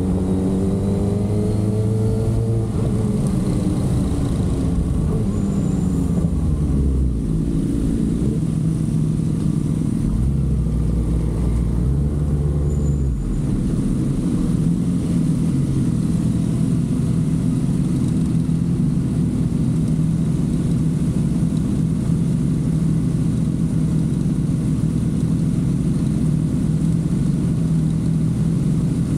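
Kawasaki ZX-6R inline-four engine, its note falling as the bike slows at the start, a short rise and fall in revs about twelve seconds in, then idling steadily for the second half.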